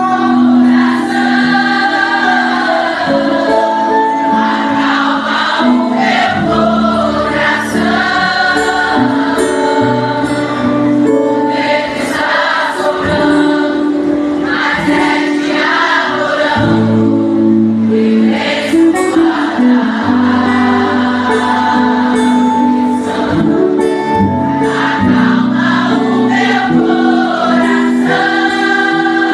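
Live gospel worship music: a singer with acoustic guitar and band backing, with many voices singing together like a crowd singing along.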